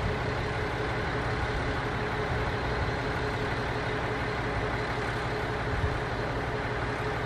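Steady low hum with a faint constant tone from an approaching electric train, still far off.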